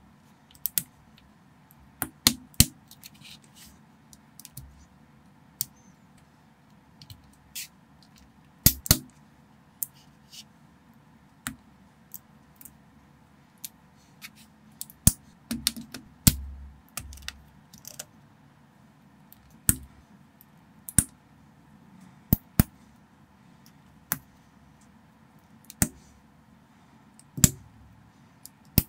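Small plastic building bricks clicking as they are handled and snapped together: irregular sharp clicks, sometimes single and sometimes in quick pairs, a second or two apart, with a dull low thump about sixteen seconds in.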